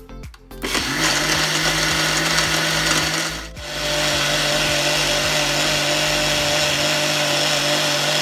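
Countertop blender with a glass jar blending yogurt and water into lassi. The motor starts about a second in, cuts out briefly a few seconds later, then runs steadily again.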